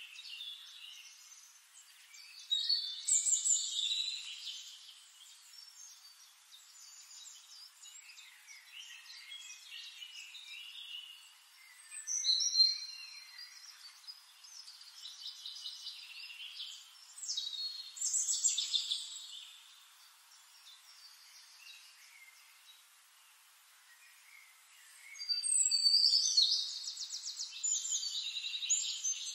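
Birds singing in separate bursts of rapid chirps and trills a few seconds apart, with the longest burst near the end.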